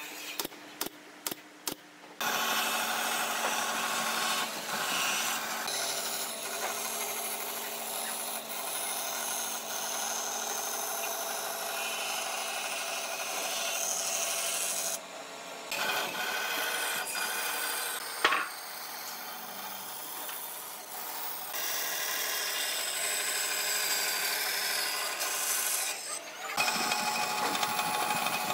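A few short bursts of a cordless drill driving screws into pine boards, then a band saw running and cutting a curve through a thick pine board, steady with two brief dips and one sharp click partway through.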